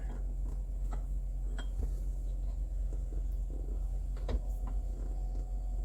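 A few light clicks and knocks, as of things being handled in a small cab, over a steady low hum.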